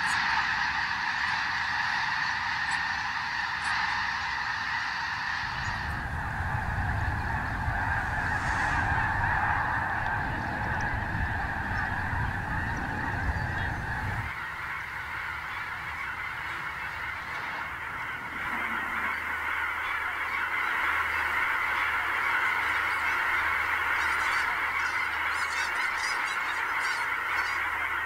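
A huge flock of snow geese calling at once: a dense, unbroken din of high honks. A low rumble lies underneath from about 6 to 14 seconds in.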